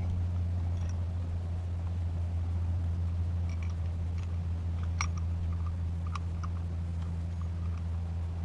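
A steady low hum with a few faint, sharp clicks and taps scattered through it, the clearest about five seconds in.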